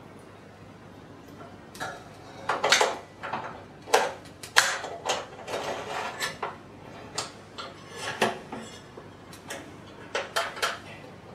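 Light metal clinks, knocks and scrapes, irregular and starting about two seconds in, from hands working the sheet-metal firebox of a Wilesco D24 toy steam engine.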